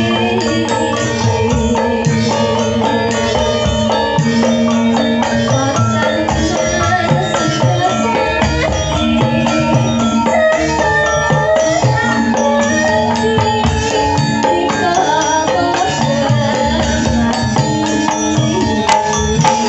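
Javanese gamelan in pelog tuning playing steadily, with ringing metallophone notes and drum strokes. A female sinden sings a tembang over it through a microphone and PA.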